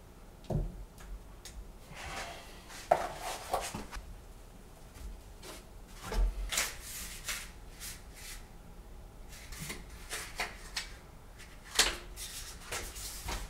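Irregular scrapes and light knocks of drywall finishing: a taping knife loading and spreading joint compound along the joints and corner.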